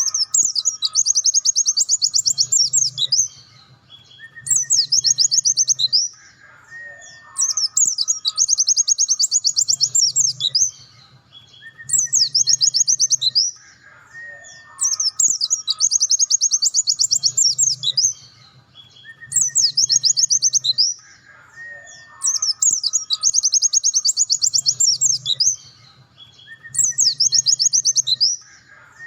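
Pleci (white-eye) singing in repeated bursts of very fast, high trilling, each burst lasting about two seconds and coming roughly every three seconds, with short lower whistled notes in the gaps between bursts.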